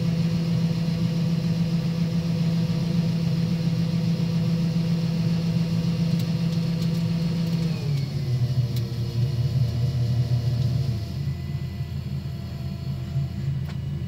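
Heavy farm machine's diesel engine running steadily, heard from inside the cab; about eight seconds in the engine note drops to a lower pitch and holds there as the engine slows.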